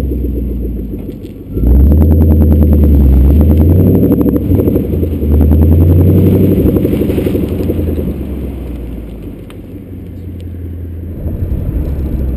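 Ford Mustang GT's 5.0 V8 through a Roush aftermarket exhaust, heard close from the car's side, accelerating hard away from a standstill about 1.5 s in, with an upshift about 5 s in and a second hard pull. After about 8 s the throttle eases and it settles to a quieter steady cruise.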